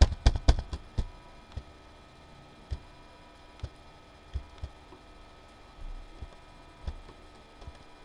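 Computer keyboard keys being pressed: a quick run of about six clicks in the first second, then single key clicks about once a second.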